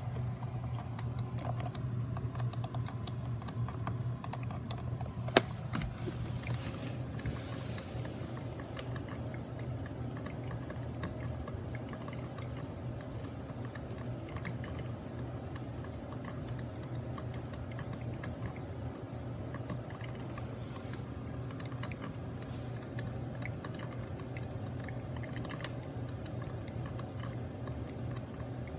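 Mr. Coffee BL5 4-cup drip coffee maker brewing: irregular small pops and sputters over a steady low hum, with one sharp click about five seconds in.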